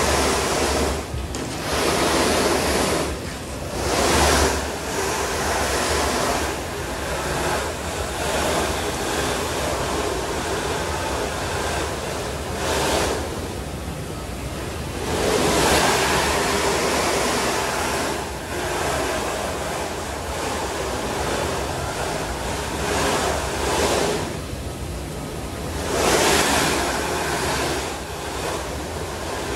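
Snowboard sliding and scraping on the moving carpet of a revolving indoor ski slope, a rushing noise that swells and fades every few seconds as the rider shifts and turns.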